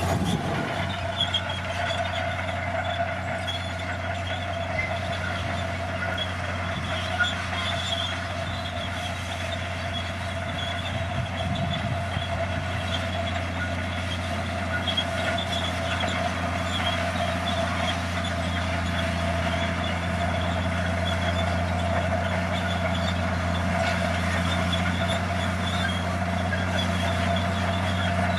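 Komatsu crawler bulldozer's diesel engine running steadily, a constant low drone with a high whine over it.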